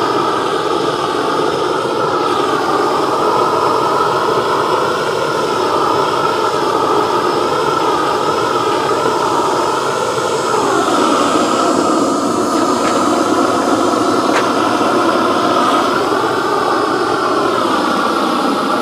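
Long-handled propane torch burning with a steady roar as its flame chars the surface of a chainsaw-carved wooden pumpkin. The pitch of the roar drops about ten seconds in and shifts again near the end.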